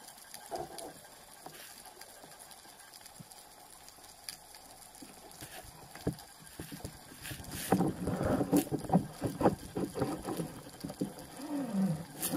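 Water splashing and gurgling around a spearfisher's camera: a quiet, even wash with the odd click at first, then a busy stretch of irregular splashes and bubbling from about halfway through.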